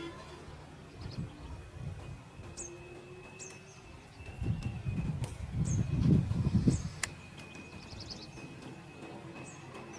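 Outdoor ambience of short bird chirps scattered throughout over a thin, steady high tone, with a louder low rumble from about four to seven seconds in and a single sharp click at about seven seconds.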